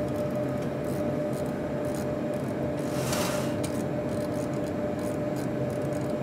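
Steady cockpit noise of a Boeing 737-800 flight simulator, a constant hum under a hiss of airflow, with light clicks from the cockpit controls scattered through and a brief hiss about three seconds in.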